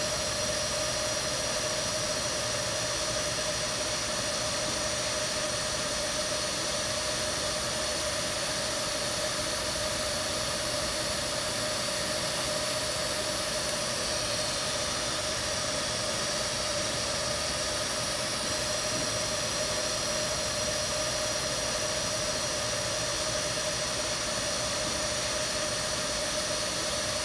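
DC TIG welding arc on thin stainless steel at 45 amps from an Everlast PowerTIG 255 EXT, burning steadily as a continuous even hiss with a faint steady tone.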